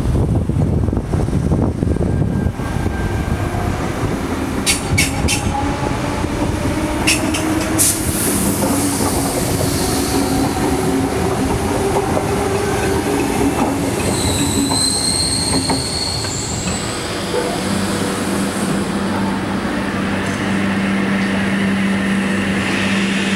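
A Sydney Trains electric train pulls out past the platform. Its motors give a steady whine, the wheels click over rail joints, and a brief high wheel squeal comes about two-thirds of the way through. Near the end a steady low hum remains from a train standing at the platform.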